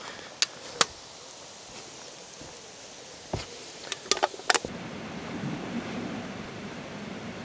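Steady rushing of a waterfall, with a few sharp clicks and knocks close by; about two-thirds of the way through the rush grows fuller and deeper.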